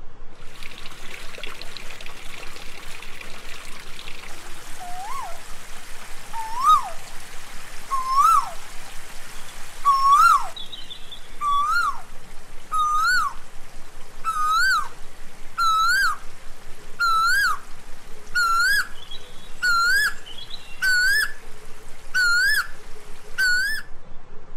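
A bird calling a long series of notes, each sliding up then dropping. The notes climb in pitch and come faster as the series goes on, over a steady pulsing background.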